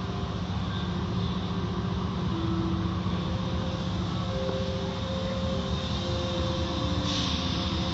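Automatic tunnel car wash heard from inside the car: water spraying and cloth curtain brushes sweeping over the glass and body, over a steady low hum of the wash machinery, with a brief louder hiss of spray near the end.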